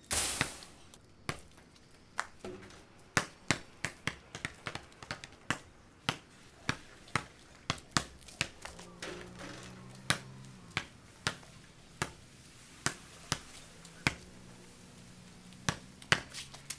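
Basketball bouncing on pavement as it is dribbled: a long string of sharp bounces, at times two or three a second, with a louder bang right at the start.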